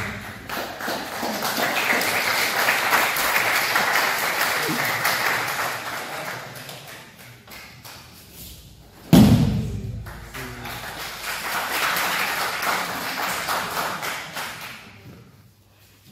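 Spectators clapping in two long rounds of applause. About nine seconds in, a heavy thud of a body thrown down onto the padded mats.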